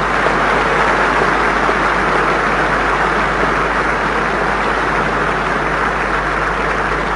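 A large audience in a big hall applauding: dense, even clapping that builds in at the start and eases off slightly toward the end, over a steady low hum in the old recording.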